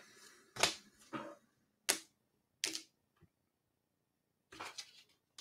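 Sharp crackles and snaps of a trading-card blaster box and its foil packs being torn open and handled. Four separate snaps come less than a second apart, then a quick cluster of them near the end.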